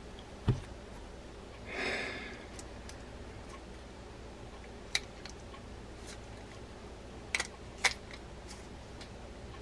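Scattered light clicks and taps of small metal reel parts being handled and fitted together on a workbench, with a dull knock about half a second in and a brief swish near two seconds.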